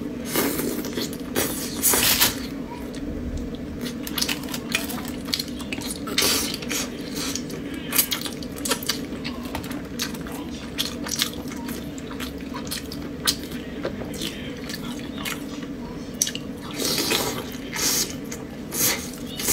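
Close-up wet eating sounds of braised chicken drumsticks eaten by hand: many sharp lip smacks and sucking clicks, meat tearing and chewing, over a steady low hum.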